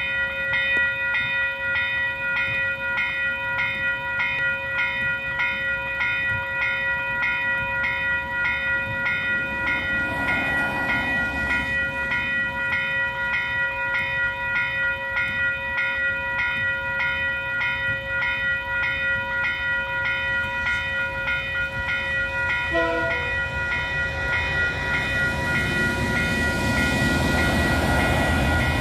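Level crossing warning bell ringing steadily at about two strokes a second. Near the end the noise of an approaching train grows louder as it reaches the crossing.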